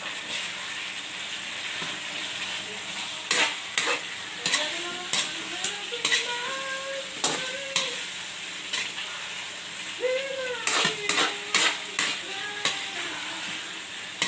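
Chicken frying in a sauce in a wok, sizzling steadily. From about three seconds in, a metal spatula stirs and turns the pieces, clattering and scraping against the wok again and again with short squeaky scrapes.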